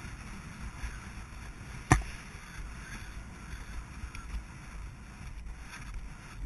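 Wind rushing over a rider's helmet camera as a horse canters along a sandy forest track, with the hoofbeats muffled under the wind noise. A single sharp knock about two seconds in.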